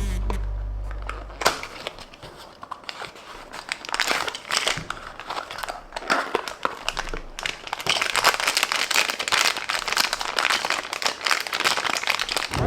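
Packaging crinkling and rustling in quick, irregular clicks as a Tomica die-cast toy car is unboxed and handled. It runs on continuously after a short fade of music at the start.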